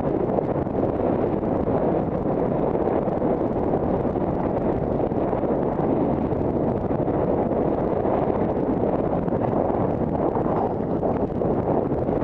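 Wind buffeting a helmet-mounted action camera's microphone while a mountain bike rides downhill on a dirt trail: a steady, loud rushing with no let-up.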